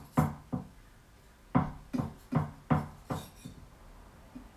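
Carving knife sawing back and forth through a roasted rotisserie chicken in a glass dish, each stroke a short scrape with a low ring. Two strokes, a pause of about a second, then five quicker strokes in a row.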